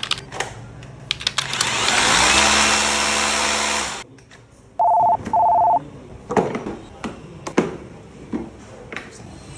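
ASSUR 21 V cordless hammer drill's motor spinning up and running for about two seconds, then stopping abruptly. Two short electronic beeps follow, then a few sharp clicks and knocks.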